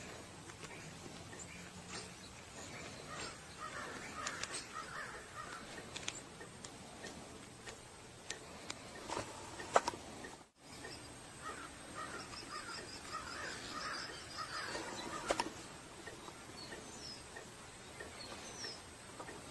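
Faint birds calling in short bursts of repeated notes, with a rapid high twittering run about twelve seconds in and a few sharp clicks.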